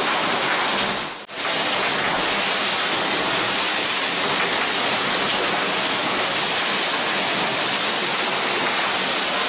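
Steady rush of water and spray as an IMOCA 60 racing yacht sails fast through rough seas, with wind on the microphone. The sound briefly cuts out about a second in.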